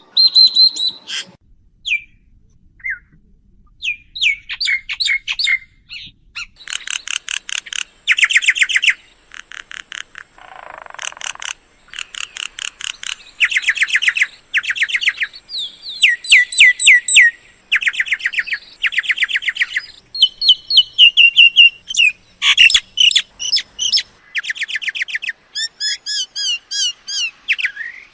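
Myna calls: loud bursts of rapid, repeated high chattering notes and short whistles, broken by brief pauses, with a harsher, rougher stretch about ten seconds in.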